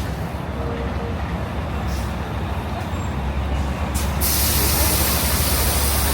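City street traffic running with a steady low rumble, then a sudden loud hiss of air starting about four seconds in and holding, typical of a heavy vehicle's air brakes.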